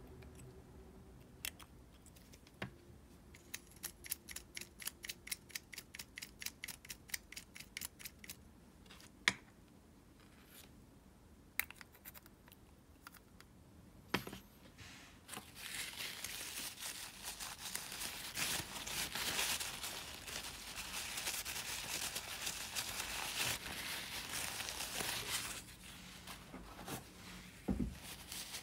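Parts of a Shimano Calcutta Conquest 400 baitcasting reel being handled during reassembly. Near the start there is a run of quick, even clicks, about seven a second, lasting some five seconds. There are a few single clicks and taps, then a long scratchy rustle of paper tissue being rubbed in the reel frame.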